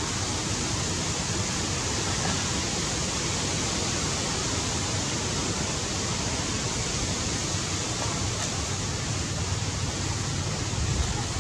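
Steady, even hiss of noise with no distinct events in it.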